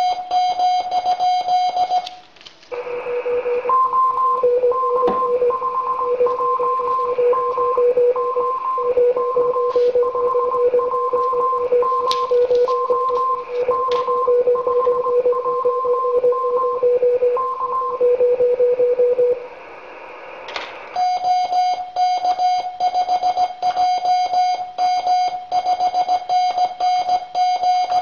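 Morse code on an amateur radio station: a steady pitched tone keyed on and off in quick dots and dashes. A couple of seconds in it gives way to a lower-pitched Morse signal over radio hiss, typical of another station's signal coming through the receiver. About 21 s in, the first, higher tone resumes keying.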